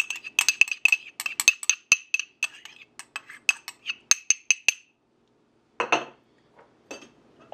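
A spoon tapping rapidly against a small dish, about four ringing clinks a second, knocking minced garlic out into a mixing bowl. The tapping stops after about five seconds, and a short clatter follows about a second later as the dish is set down.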